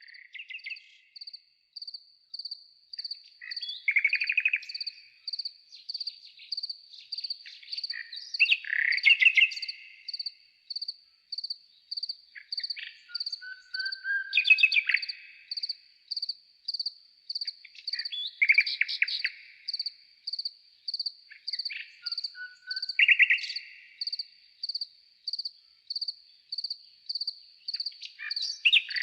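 Nightingale song slowed down four times: separate drawn-out song phrases every four to five seconds, over an even high pulsing tone of about one and a half pulses a second.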